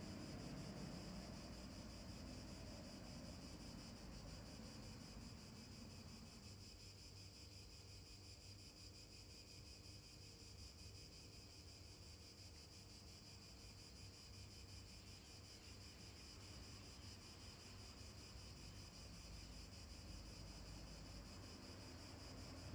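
Near silence: faint outdoor background with a steady high-pitched hiss and a low rumble, with no distinct events.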